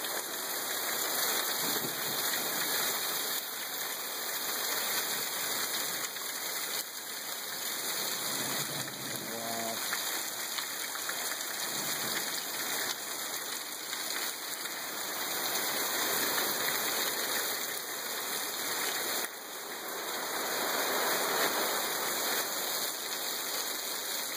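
Heavy rain falling steadily on trees and a wet wooden deck.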